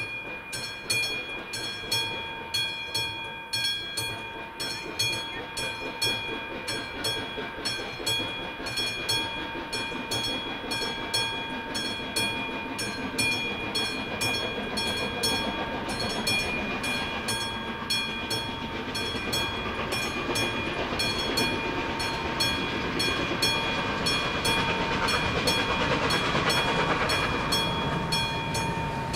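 Classic bell of an AŽD 71 level-crossing signal ringing with regular, evenly spaced strokes, warning that a train is approaching. About halfway through, the noise of an approaching train rises under the bell and keeps growing louder.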